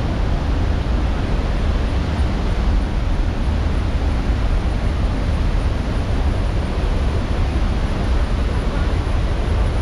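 Athirappilly Falls in monsoon flood: a steady rush of a large volume of falling water, unbroken and loud, with a deep low rumble underneath.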